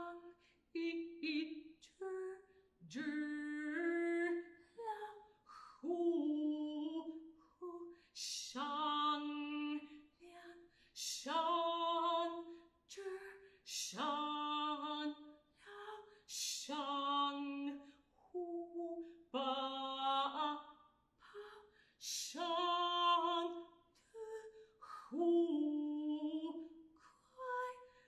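Unaccompanied solo alto voice singing a contemporary vocal piece: short held and gliding notes in separate phrases broken by brief pauses, with sharp hissed consonants between several of them.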